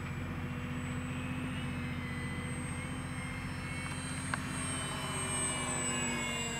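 XFly Tasman RC bush plane in flight: its brushless electric motor and two-blade propeller give a steady whine. The whine swells a little as the plane passes closer, about five to six seconds in.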